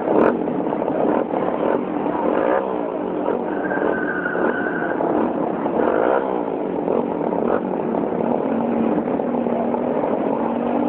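Motorcycle engines revving repeatedly, the pitch sweeping up and falling back several times.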